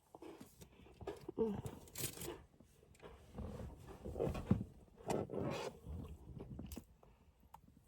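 A person biting into and chewing a crunchy snack close to the microphone, with irregular crunches.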